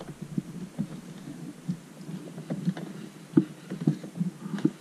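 Hands handling red insulated cable and pushing its stripped end into a breaker's top terminal in a plastic switchboard: a string of small, irregular clicks and taps, with a sharper tap about three and a half seconds in and another near the end.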